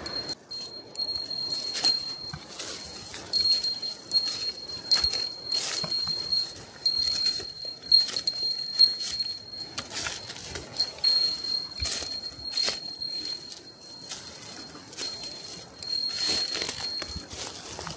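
A small bell jingling at one steady high pitch, ringing again and again in step with a walker's footsteps: a bear bell carried while hiking. Crunching, clicking footsteps on the forest floor sound along with it.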